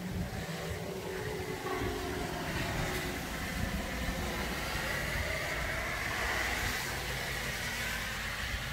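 Heavy rain falling steadily, a constant hiss.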